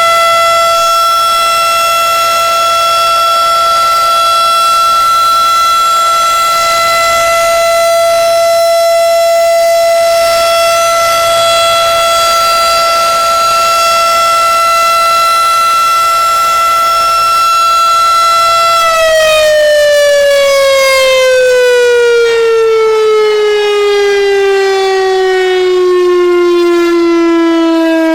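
Federal Signal RSH-10A Thunderbeam outdoor warning siren sounding a loud, steady tone. About two-thirds of the way through, its pitch starts falling steadily as the siren winds down.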